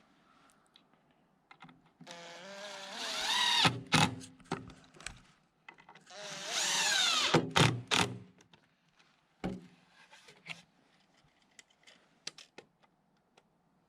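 Impact driver driving two screws into wood: each time the motor whines for about a second and a half, rising in pitch, then a few sharp knocks follow. Scattered light clicks and taps come after.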